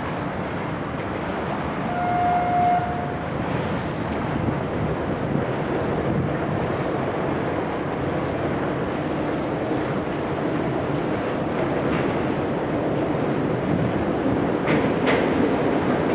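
Steady rumble of road and rail traffic on the Sydney Harbour Bridge overhead, with a short horn-like note about two seconds in and a couple of sharp clicks near the end.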